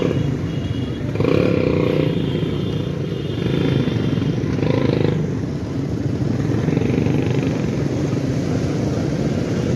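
Motorcycles and other road traffic running past on a busy street, a steady mass of engine noise that swells a little as vehicles go by.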